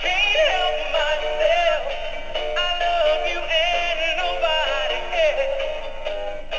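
Animated plush elephant toy singing its built-in song: a high sung melody with a wavering pitch over a backing tune of steady notes.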